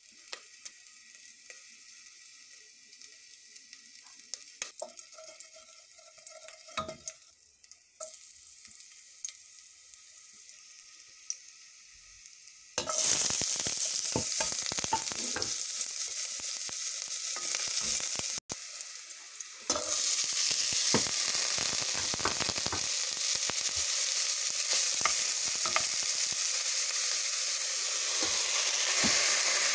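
Food frying in a hot pan with clicks of handling, quiet for the first dozen seconds, then a loud steady sizzle from about 13 s in that drops out briefly around 18 to 20 s and resumes.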